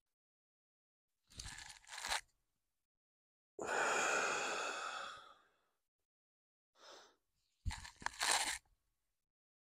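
A man breathing hard through the mouth with the effort of lifting dumbbells: a few loud breaths with silence between them, the longest about four seconds in, and a short knock near the end.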